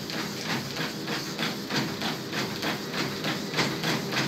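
Bare feet striking the running belt of a Slim Line motorised treadmill at a steady jog, about three footfalls a second, over a steady low hum.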